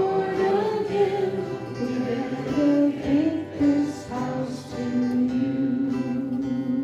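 Worship music: singing voices with acoustic guitar accompaniment, a slow melody over held chords.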